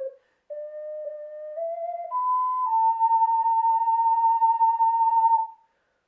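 STL Nightingale tenor C ocarina played solo with a pure, flute-like tone. After a short breath near the start, a few notes step upward, and then one long note is held for about three seconds and ends just before the close.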